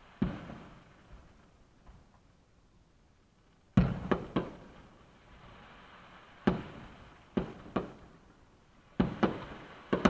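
Firework shells bursting: about ten sharp bangs at irregular intervals, some in quick pairs and threes, each with a short rumbling tail, heard from inside a parked car.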